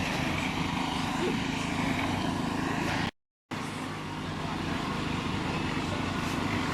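An engine running steadily at one speed with a low, even drone. It cuts out to dead silence for about half a second a little past three seconds in, then carries on unchanged.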